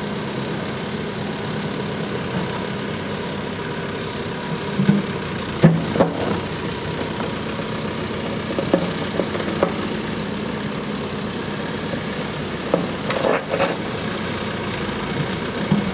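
Fermec 860 backhoe loader's diesel engine running steadily while the machine drives slowly. Several short loud clanks and knocks come about five and six seconds in, again near nine seconds, and around thirteen seconds.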